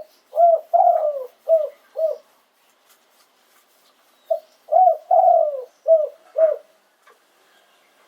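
Spotted dove cooing: two phrases about four seconds apart, each of about five low notes with a longer falling coo in the middle.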